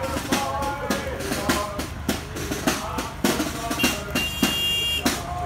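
Marching band snare and bass drums beating a steady march rhythm, a stroke a little more often than every half second. A steady high tone, like a whistle, sounds for about a second near the end.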